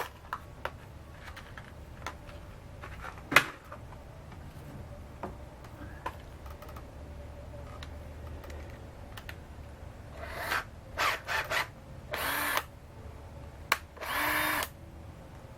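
Power drill run in several short bursts in the second half, as sheet-metal ducting is fastened to a plastic mower discharge chute; a single sharp click about three seconds in.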